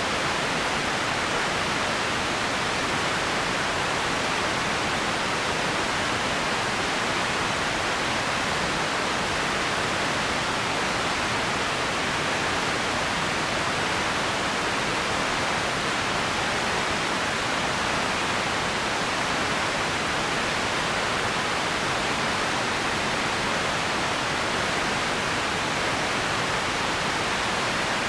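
Empty ambience noise: a steady, even hiss with no events in it, unchanging in level, its weight in the middle range rather than the low end.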